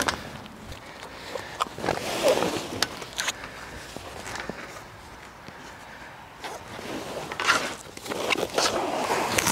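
Sailcloth convertible-top fabric rustling and sliding as it is dragged forward over the top frame, with a few light clicks and knocks.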